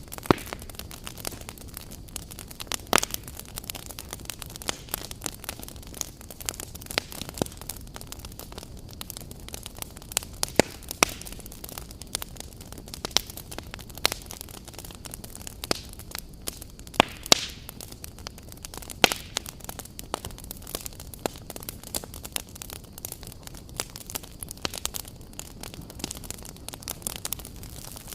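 Wood fire burning with a steady low rush and irregular sharp crackles and pops, several a second, a few of them loud.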